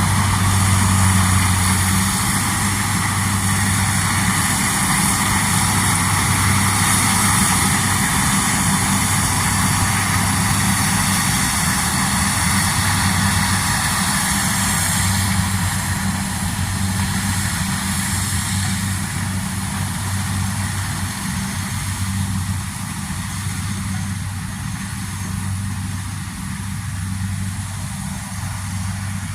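Combine harvester running steadily, a deep engine hum under a broad mechanical rush, easing off a little toward the end.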